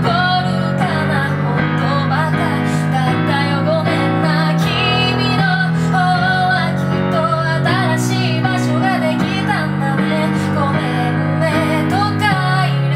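A woman singing while accompanying herself on piano: a wavering sung melody over steady held chords.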